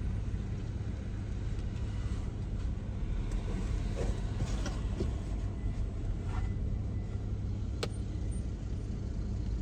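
Vehicle engine idling, a steady low rumble heard from inside the cab, with faint rustling from about three seconds in and one sharp click about eight seconds in.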